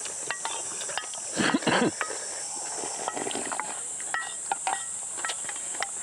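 Steady high-pitched buzz of summer insects, with eating noises over it: scattered sharp clicks of utensils on bowls and a louder burst of eating noise about one and a half seconds in.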